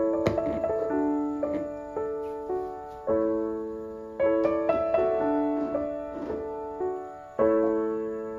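Background piano music: soft chords and a simple melody, each note struck and left to fade.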